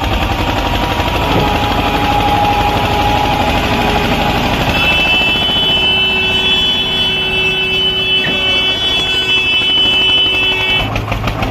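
Eicher 242 tractor's single-cylinder diesel engine running hard under heavy load, pulling a loaded trailer through deep mud. A loud, fast, even chugging, with a steady high whine joining about halfway through.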